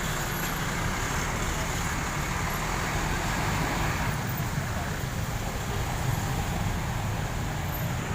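Steady road-traffic noise with vehicle engines running low and even. Nothing stands out above it.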